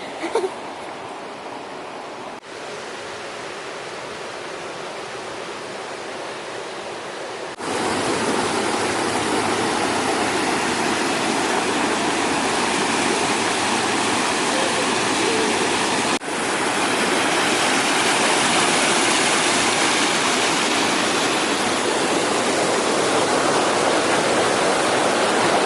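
Steady rush of a river and its waterfall. It grows much louder about a third of the way in, with a couple of brief breaks where the shot changes.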